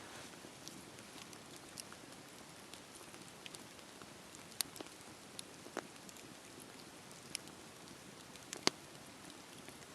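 Wood fire crackling, with a steady soft hiss and scattered sharp pops and snaps, the loudest pop near the end.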